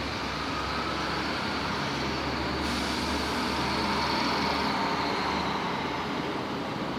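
City street traffic with a heavy motor vehicle driving past, growing to its loudest a little past halfway and then easing off, over a steady rumble of traffic.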